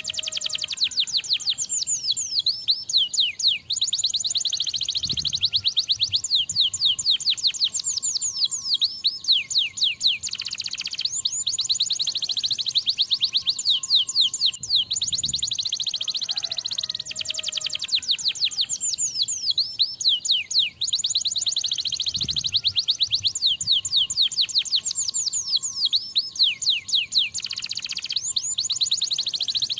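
Domestic canary singing a long, unbroken song of fast, high trills. The notes come in rapid series of quick downward sweeps, and the trill type changes every few seconds.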